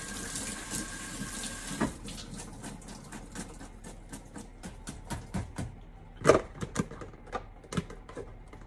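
Kitchen faucet running water over cut potatoes in a plastic salad-spinner basket, shut off suddenly about two seconds in. Then scattered light clicks and knocks of the plastic basket and potatoes being handled and set into the spinner bowl, one knock near the middle louder than the rest.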